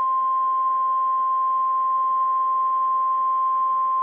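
NOAA Weather Radio warning alarm tone, the 1050 Hz tone: one steady, unbroken beep held at a constant loud level. It is the alert signal sent ahead of a tornado watch to switch on weather alert receivers.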